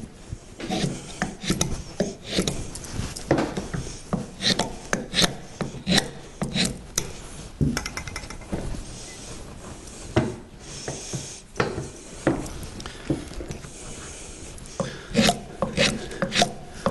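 Hand-tool strokes scraping and shaving a hardwood hammer handle held in a vise, taking wood off all round to fit the handle to the hammer head's eye. The strokes come irregularly, one or two a second.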